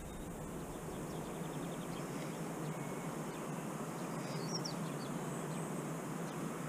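Steady outdoor background noise with a few faint bird chirps, high-pitched and brief, about four seconds in.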